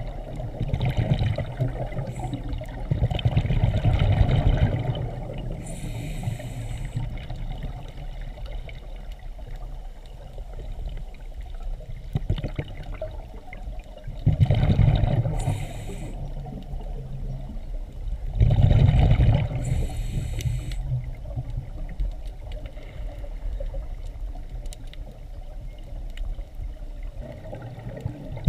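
Scuba breathing through a regulator, heard underwater: loud bursts of exhaled bubbles every several seconds, about five in all, with a short hiss of inhalation between some of them.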